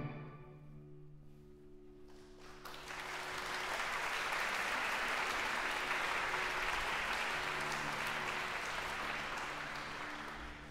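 A chamber orchestra's final chord dies away into the hall's reverberation. After a brief hush of about two and a half seconds, a concert audience breaks into steady applause.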